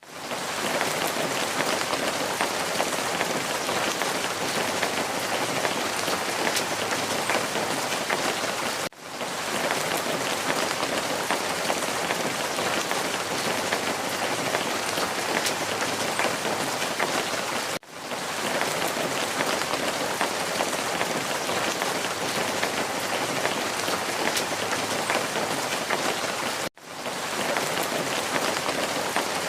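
Steady rain-like hiss of falling water. It drops out briefly and fades back in three times, evenly about every nine seconds.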